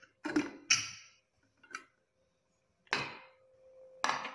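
Aluminium pressure cooker being opened: metallic clicks and clinks as the weight is lifted off the vent, then louder clanks of the lid being worked free and lifted, the loudest about three seconds in and another near the end. There is no steam hiss, so the pressure has already gone down.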